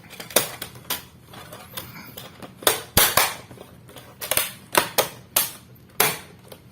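Plastic bottom cover of a Dell Inspiron 5470 laptop being fitted back on: an irregular run of sharp clicks and knocks as the panel is pressed into place, the loudest about halfway through.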